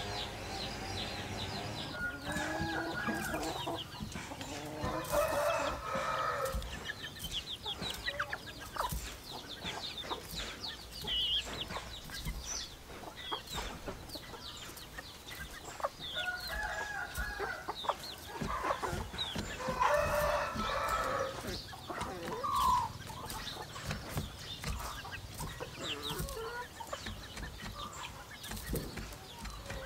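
Rooster crowing twice, each crow about two seconds long, about fourteen seconds apart. Shorter clucking calls and faint clicks come in between.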